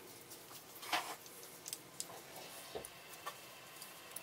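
Metal airgun parts being handled by hand on a workbench: scattered light clicks and taps, the loudest about a second in.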